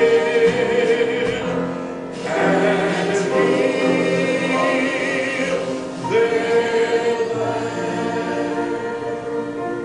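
A slow worship song sung by a group of voices, in three long phrases with held notes. The last phrase fades out gradually.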